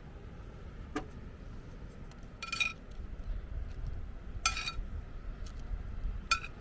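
Cookware clinking three times, each strike ringing briefly, after a single light click, over a low steady rumble.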